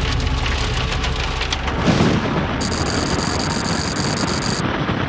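Heavy rain on a moving vehicle mixed with road noise, a dense steady rush with a brief louder surge about two seconds in.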